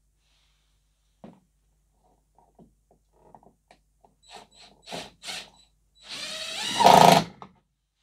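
Cordless drill-driver driving a Torx screw into the tailgate handle, running for about a second and a half near the end, rising in pitch and stopping suddenly. Before it, a few light clicks and taps of handling.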